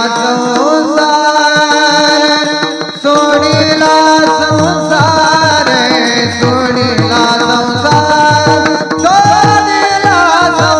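Marathi devotional kirtan music: a male voice sings long, ornamented held lines over a steady held accompaniment. A hand drum joins with quick, rapid strokes after a brief dip about three seconds in.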